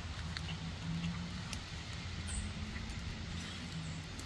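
A steady low engine hum, like a vehicle running, with a few faint sharp clicks scattered through it.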